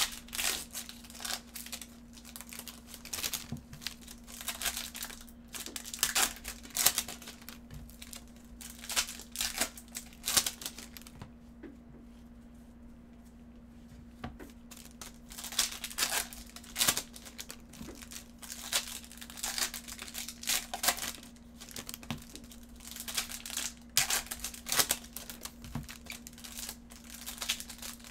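Foil wrappers of baseball card packs being torn open and crinkled by hand, in repeated bursts of crackling, with a quiet pause of a few seconds around the middle.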